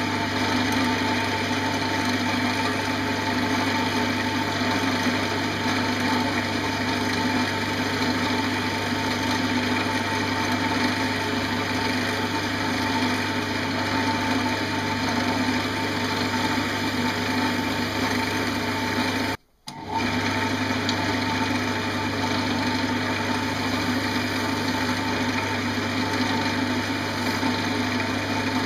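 Wood lathe running steadily with a constant motor hum while a bowl gouge cuts into the spinning green pear wood blank. The sound breaks off briefly about two-thirds of the way in.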